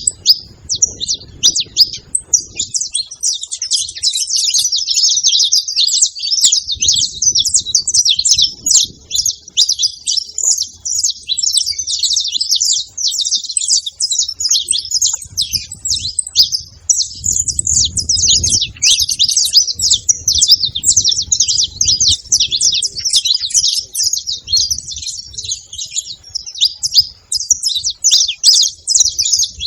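Several saffron finches chirping and singing at once: a dense, continuous chatter of rapid high notes. A low rumble comes and goes beneath it.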